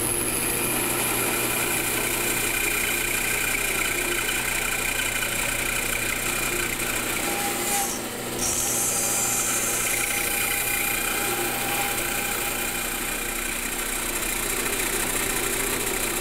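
Bandsaw running steadily while its blade makes a series of short cuts into the end of a wooden board, clearing waste from a bridle joint's notch. There is a brief dip in the noise about eight seconds in.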